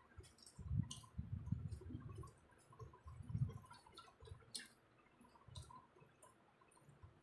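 Faint eating sounds: scattered mouth clicks and soft low thumps of chewing food.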